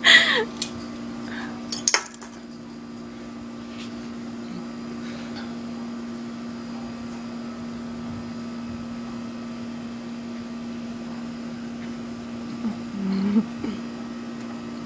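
A steady low hum with a few clicks; right at the start a brief loud sound sliding down in pitch, and near the end a short low throaty sound rising in pitch, an attempt at a burp that doesn't come off.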